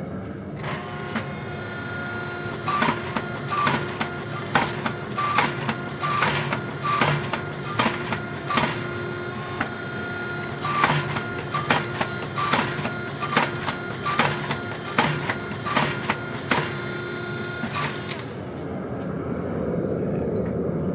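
Forging press running with a steady motor hum while a hot billet is pressed, with sharp cracks and ticks, about two or three a second. The hum and cracks stop about eighteen seconds in.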